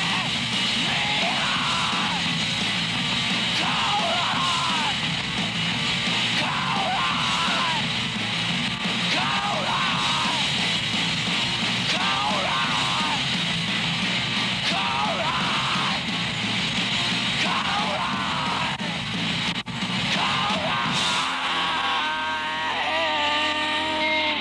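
Rock song with a loud, shouted vocal line sung in short phrases about once a second over a steady band. About three seconds before the end it gives way to a different sound of steady held tones.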